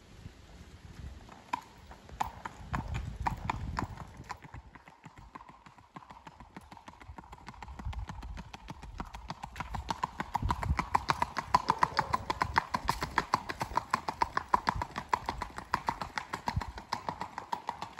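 Gaited horse's hooves striking a paved lane in a quick, even clip-clop, getting louder in the second half.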